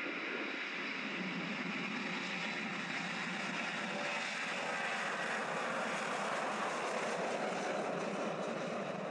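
Jet engines of a four-engine Douglas DC-8 Super 70 (CFM56 turbofans) running at high power as the airliner starts its takeoff roll, a steady jet noise that grows slightly louder.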